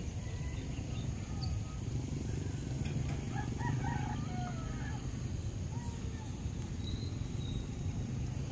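A rooster crows once, about three to four seconds in, over a steady low rumble.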